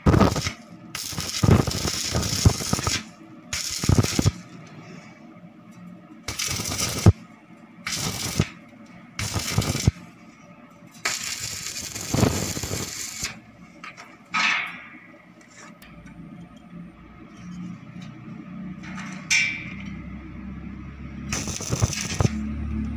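Electric arc welding on a steel frame: about ten short bursts of welding-arc noise, each from half a second to about two seconds long, with pauses between them as the welds are laid.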